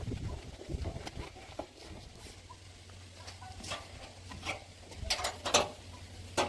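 Engine running low and steady at idle, with scattered sharp clicks and knocks over it.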